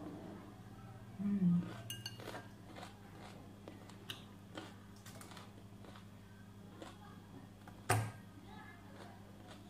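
Metal fork clinking and scraping against a glass salad bowl: scattered light clinks, with a sharper one about eight seconds in. A short low hummed voice sound about a second in.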